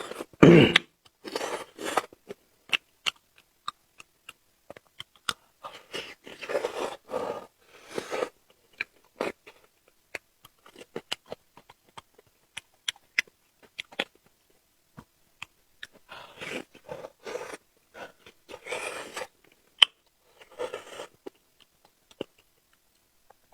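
Close-miked chewing and biting of food, with sharp mouth clicks and short crunching bursts that come in clusters separated by pauses. The loudest sound is a single hit about half a second in.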